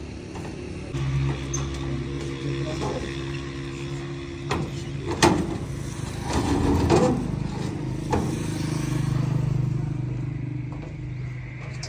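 A vehicle engine running steadily with a low hum, growing louder and fading again around nine to ten seconds in. Several sharp knocks and clunks come from motorcycles being shifted on a wooden truck bed, about four to eight seconds in.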